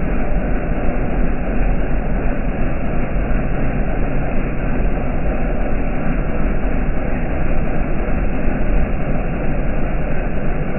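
Heavy rain falling, a steady dense rushing noise with a strong low rumble and no change throughout.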